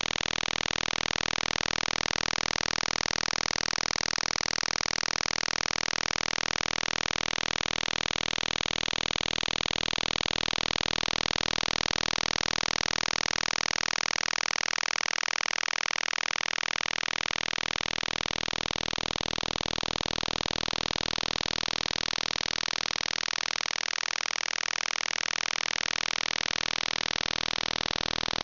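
Shortwave radio signal received on the University of Twente WebSDR: a continuous buzz whose tone colour slowly shifts and drifts without a break.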